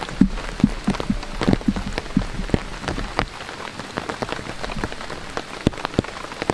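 Rain falling, heard as a steady hiss with heavy drops striking close by in many irregular sharp taps, a few with a short hollow plink.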